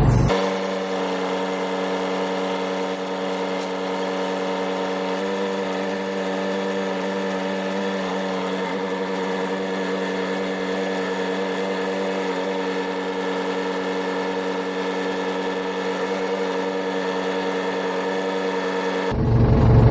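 Ford 755 backhoe's engine running at a steady speed, an even hum with no low rumble, cutting in abruptly just after the start and cutting out abruptly near the end.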